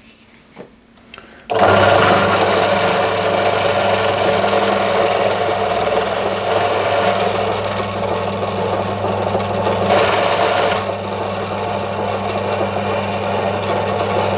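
Bench drill press motor switched on about a second and a half in, then running steadily with a low hum under a whir, while a centre drill is fed into an aluminium block.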